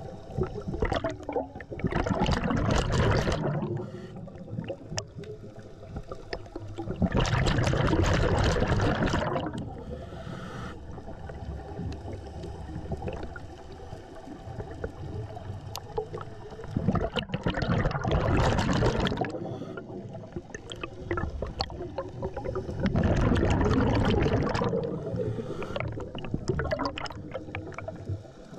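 Scuba diver breathing underwater: four long gurgling bursts of exhaled bubbles from a regulator, about six seconds apart, with quieter water noise between breaths.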